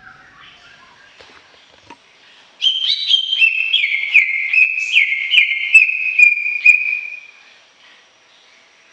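Cucak ijo, a leafbird, singing. Faint chirps give way about two and a half seconds in to a loud run of rapid whistled notes that step down in pitch over about four and a half seconds, then stop.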